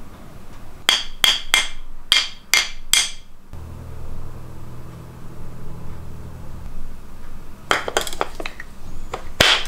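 Handling noise from a steel hose-band clamp and an angle grinder on a wood-and-putty mount. First comes a run of six sharp metallic clicks, evenly spaced, each with a short ring. A few seconds later comes a cluster of knocks and clatter, the loudest near the end.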